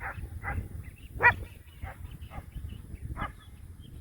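A dog barking repeatedly, about six barks spaced roughly half a second apart, the loudest about a second in, with a low rumble of wind on the microphone beneath.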